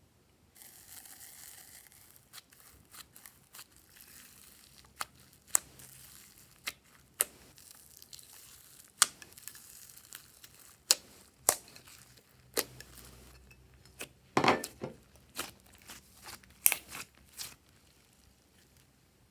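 Glossy slime being squished and stretched by hand: a soft sticky crackling with a string of sharp pops, thickest about three-quarters of the way through, stopping shortly before the end.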